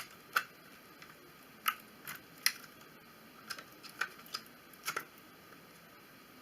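Irregular sharp little clicks and snaps, about a dozen, as the motion sensor's plastic housing is handled and pried open.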